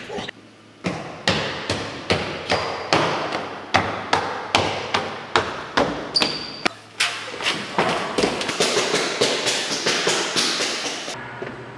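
Footsteps thudding on stairs in a rapid, even rhythm of about two to three a second, with echo. They stop abruptly near the end.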